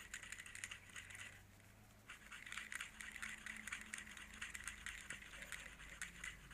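Faint, rapid scratching and clicking of a fishing lure's metal hooks being worked by hand against a sharpener, with a short pause about one and a half seconds in.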